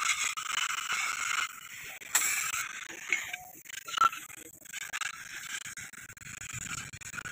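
Gas torch flame hissing steadily against a chrome scooter silencer pipe, with a louder rush of hiss about two seconds in and a sharp click about four seconds in.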